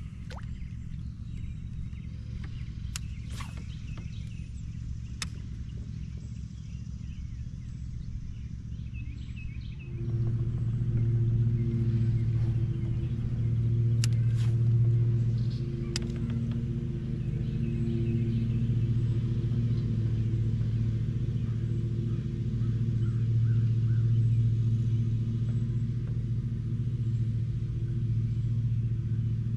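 Steady low rumble with a few sharp clicks, then a motorboat's engine hum that comes in louder about ten seconds in and holds a steady low pitch.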